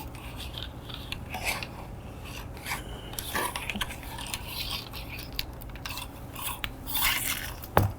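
Bore brush being run dry through the barrel of a Savage 6.5 Creedmoor rifle: irregular scraping and rubbing, with scattered small clicks and knocks.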